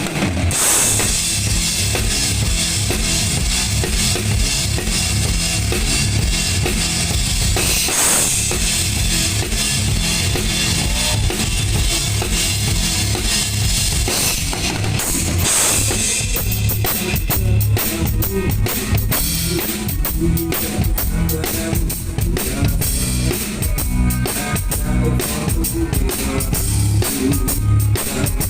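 Drum kit played loud through a PA at a rock band's sound check: a steady bass-drum and snare beat, with cymbal crashes about a second in, near 8 s and near 15 s, and quicker hi-hat strokes through the second half.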